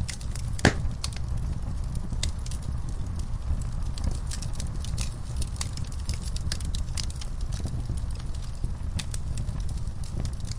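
Wood fire crackling, with irregular sharp pops and snaps over a steady low rumble of the flames; one loud pop comes less than a second in.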